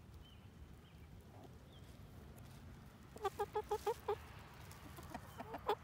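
A hen clucking: a quick run of about seven short clucks about three seconds in, and another run of clucks starting near the end.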